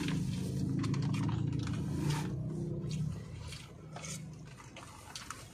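Plastic spoon scraping and clicking against a plastic bag of food, with the bag crinkling as it is handled. A low hum sits underneath and fades about three seconds in.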